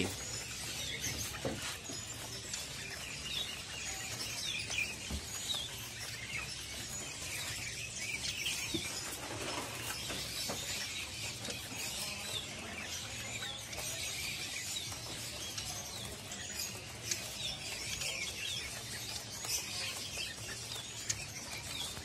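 Many small caged songbirds chirping and twittering together, with short, high calls overlapping continuously.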